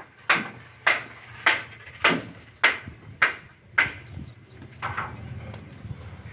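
Repeated hammer blows at an even pace, about one every 0.6 seconds, trailing off in the last couple of seconds.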